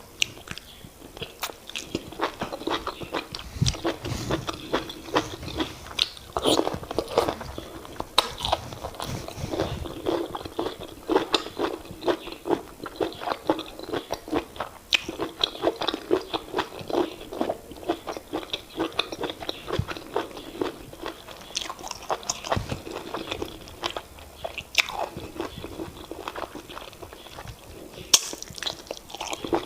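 Close-miked chewing and wet mouth sounds of a person eating fufu with oha soup: a steady stream of short smacks and clicks.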